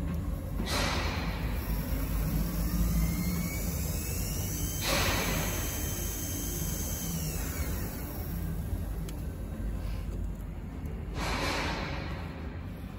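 Sony DSR-11 DVCAM MiniDV deck rewinding a tape: a faint high whine from the tape transport rises in pitch as the spools speed up, then falls away when it is stopped. Three brief whooshing bursts of noise stand out over a steady background, about a second in, near the middle and near the end.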